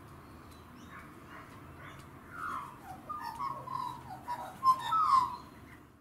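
Australian magpie warbling: a run of gliding, wavering notes that starts about two seconds in and is loudest near the end.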